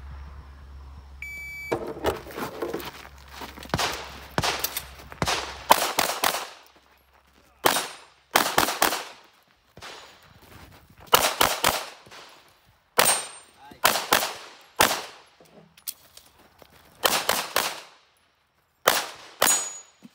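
Shot-timer start beep about a second in, then a handgun fired in rapid strings of two to four shots, about a dozen strings with short pauses between them as the shooter moves through a practical-shooting stage.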